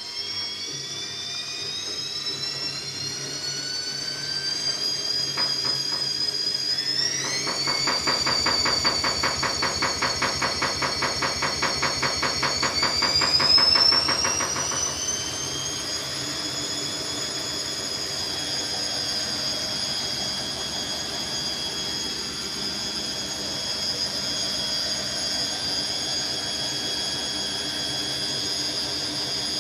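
Washing machine spinning up to high speed, its motor whine climbing in pitch in two steps and then holding at a steady high pitch. A fast, even pulsing runs through the middle of the climb.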